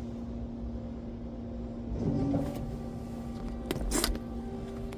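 A steady machine hum with one low, constant tone, and two sharp knocks in quick succession near the end.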